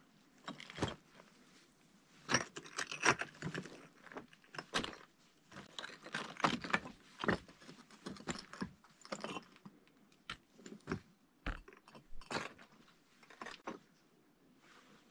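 Footsteps on loose lava-rock rubble: irregular crunches and clinks of shifting stones, with some scraping.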